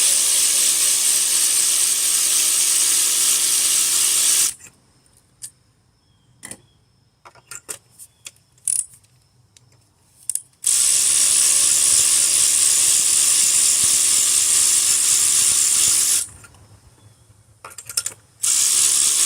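Ratchet wrench on a spark plug socket spun in long runs of rapid, continuous clicking, each lasting several seconds, while an old spark plug is worked out of the engine. Scattered separate clicks and taps fall between the runs.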